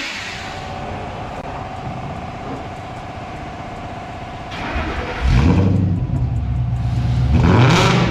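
A car engine cranks and fires up about four and a half seconds in, then runs loud and deep through a newly welded-in MBRP aftermarket exhaust, with a blip of the throttle near the end.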